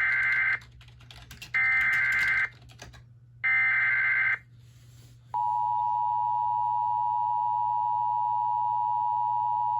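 Emergency Alert System SAME header: three identical buzzing data bursts about a second apart, followed about five seconds in by the steady two-tone EAS attention signal, which marks the start of a relayed alert.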